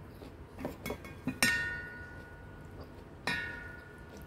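Wooden fork and spoon knocking against a stainless steel bowl: a few light taps, then two sharper knocks about two seconds apart, each leaving the bowl ringing with a clear tone that fades over about a second.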